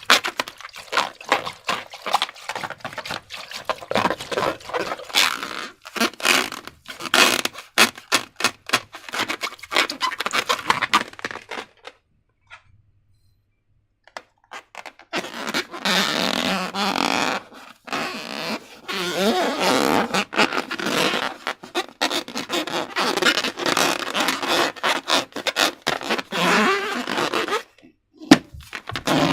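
Slime being squished and pulled by hand, with rapid sticky clicks and crackles. About halfway through it stops for around three seconds, then comes back as thicker squelching with wavering squeaks from trapped air and the rubber.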